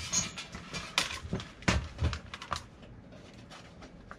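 Irregular clicks, taps and knocks of a small plastic power meter and its wires being handled and pushed into a cut-out in a breaker-panel cover. The clicks are busiest in the first two and a half seconds and thin out after.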